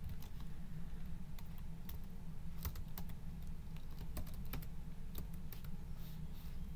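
Typing on a computer keyboard: irregular keystroke clicks, over a steady low hum.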